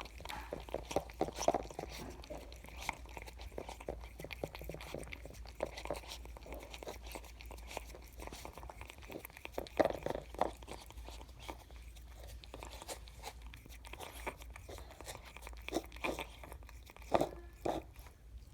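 Kittens lapping milk: a quick, irregular run of small wet clicks and smacks, with a few louder ones about ten seconds in and near the end.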